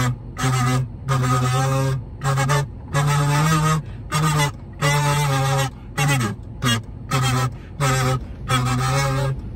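A long series of loud, goose-like honks, about a dozen, each under a second long with short gaps between them.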